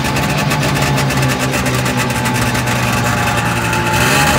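John Deere Liquidator 340 clone snowmobile's two-stroke engine running steadily under way, heard from the seat. It gets louder and hissier near the end.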